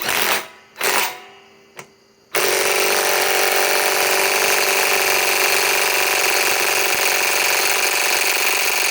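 DeWalt XR DCF891 cordless impact wrench tightening a large nut: two short trigger bursts, then, about two and a half seconds in, a long continuous run of rapid hammering as the wrench impacts on the nut.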